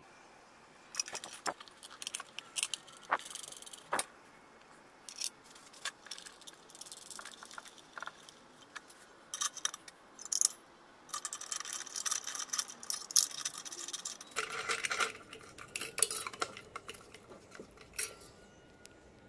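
Scattered metallic clinks and clatters as small metal parts and a cut tin can are handled against an old frying pan: a nut and washer go onto the spindle through the pan, and the can is set down inside it. The clatter is densest about three-quarters of the way through.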